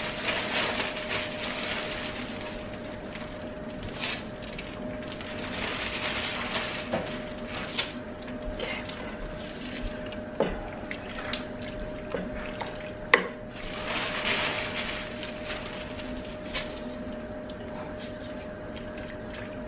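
Wooden spoon stirring soup in a pot while frozen spinach is squeezed from a plastic bag: crinkling plastic, a few sharp knocks of the spoon against the pot, and liquid sloshing, over a steady hum.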